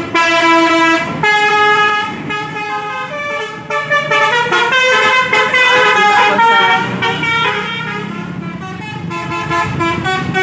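Tour bus's multi-tone telolet horn playing a quick melody of stepping notes, with the bus's engine running low underneath in the second half.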